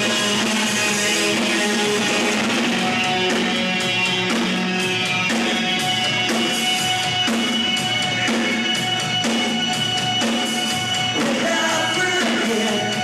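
Rock band playing live: guitar over bass and drums, with a voice singing near the end.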